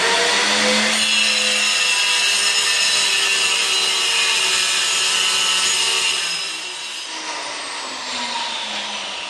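Handheld electric stone cutter with a diamond blade sawing a 45-degree mitre across the end of a granite strip: a loud, steady grinding whine. It drops noticeably quieter about six and a half seconds in and keeps running to the end.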